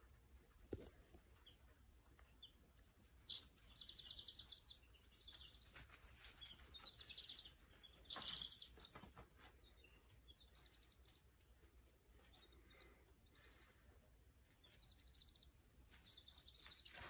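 Faint, scattered peeping of young meat chicks, dark Cornish and white rock cross, with a few soft clicks and taps among the peeps.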